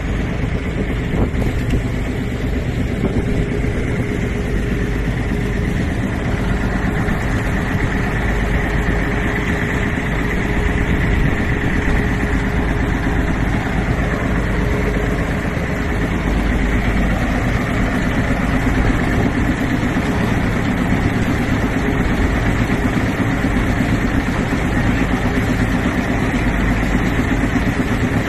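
An engine running steadily at a constant speed, with no change in pitch.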